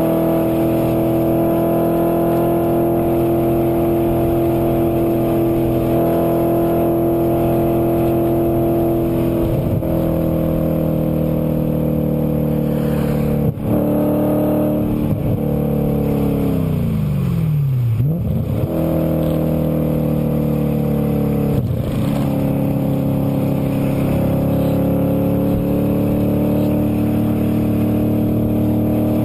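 2008 Audi RS4's 4.2-litre V8 with a Milltek exhaust, heard from inside the cabin, pulling hard at high revs on track. The note breaks briefly a few times in the first half. The revs then fall away steadily for a few seconds and climb again.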